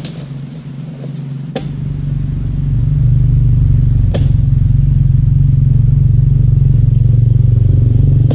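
A motor starts running about a second and a half in, builds over a second or so, then runs steadily, loud and low. Two sharp knocks of a pole-mounted dodos chisel striking the palm's frond base come about a second and a half and four seconds in.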